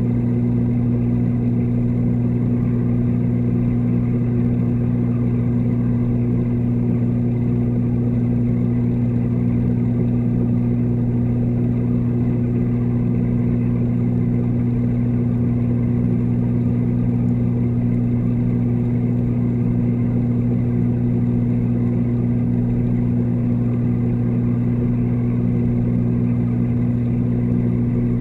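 Steady, unchanging hum of a reef aquarium's water pumps, picked up by a camera submerged in the tank: a low drone with a strong low tone and its overtone, carried through the water.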